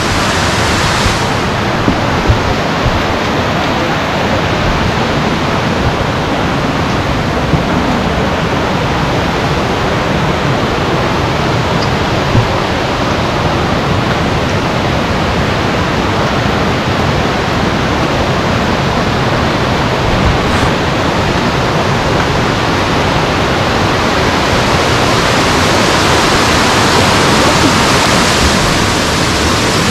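Steady, loud rush of a waterfall's falling water, growing somewhat louder near the end.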